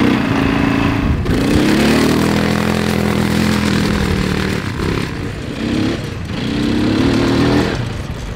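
Quad bike (ATV) engine running as it is ridden over sand, its pitch rising and falling with the throttle. It breaks off briefly about a second in, then revs up again.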